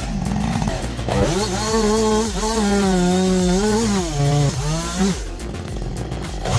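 Chainsaw running at high revs as it cuts into a beech tree, its pitch rising and dipping under load. About four seconds in the engine note drops lower, then it eases off.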